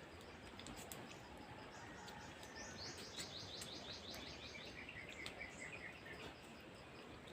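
A bird singing faintly over quiet outdoor background noise. It gives a fast trill of short, falling, high-pitched notes starting a few seconds in, then a looser run of lower chirps.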